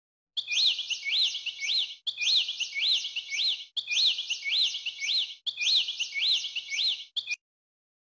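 Bird-chirp sound effect laid over the video: a short phrase of a few quick rising-and-falling chirps, looped four times back to back, then cut off with a brief fragment near the end.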